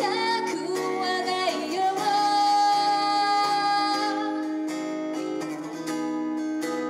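Live song with a singer's voice holding long notes over plucked acoustic guitar.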